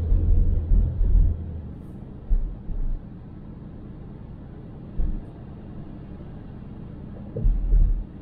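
Car driving, heard through a dash cam: a steady low road rumble with several heavy low thumps, a cluster in the first second, a few short ones in the middle and another cluster near the end.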